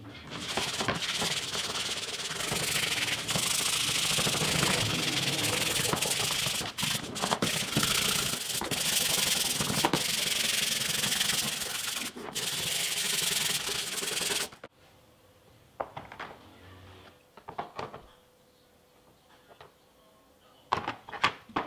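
Plastic housing halves of a cordless rotary hammer drill being scrubbed clean in a tray of soapy water: a loud, steady, scratchy scrubbing that stops abruptly about two-thirds of the way through. After that come only scattered light clicks and knocks as the wet plastic parts are handled.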